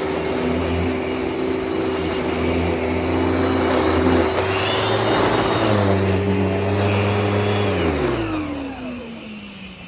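Kenmore Whisper Tone canister vacuum running steadily, with a high whistle rising briefly in the middle. About eight seconds in it is switched off and the motor winds down, its pitch falling away.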